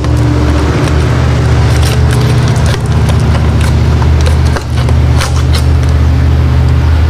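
A steady low machine drone throughout, with scattered light metallic clicks and taps as bolts are run in snug by hand with a ratchet.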